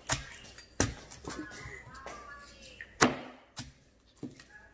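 Cleaver chopping through a watermelon onto a wooden cutting board: a string of sharp knocks, the loudest about three seconds in.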